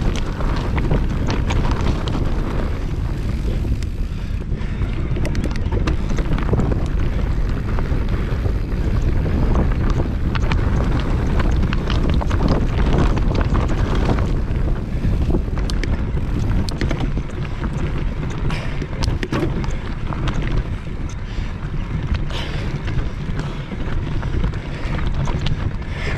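Wind buffeting the microphone of a mountain bike's camera during a descent, over the tyres running on a rough stony trail, with many short clicks and rattles from the bike as it bounces over the rocks.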